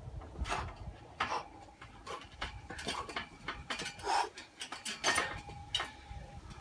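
Sharp metallic clinks and knocks from a steel pull-up bar and its frame as a man grips, hangs and swings on it, some followed by a brief ringing tone in the later part.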